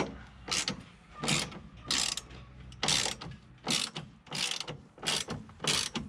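Hand ratchet wrench worked in repeated strokes, its pawl clicking in a short burst on each swing, about eight strokes evenly spaced, one roughly every three-quarters of a second.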